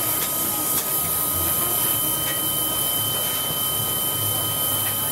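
Stationary steam locomotive in steam, giving a steady high hiss with a constant whine running through it.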